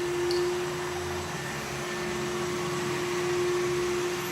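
Samsung VR20M7070WD robot vacuum running, a steady hum with one constant tone over an even hiss, as it is steered by its remote's pointer.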